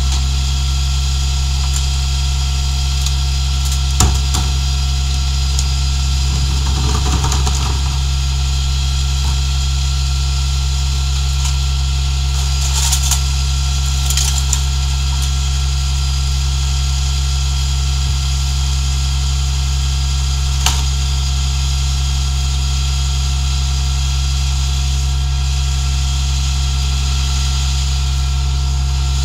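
International rear-loader garbage truck's engine idling steadily. Over it, a few knocks and stretches of rattling as trash cans are tipped and emptied into the rear hopper.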